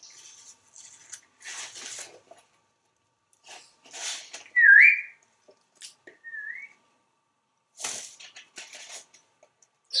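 African grey parrot preening, its beak working through its feathers in short scratchy rustles, with two short whistles from the bird about halfway through, the first loud and the second softer and a second and a half later.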